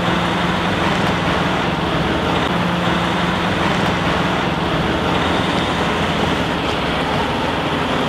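Fire engine driving slowly away, its engine running with a steady low hum, while it lays large-diameter supply hose from its rear hose bed.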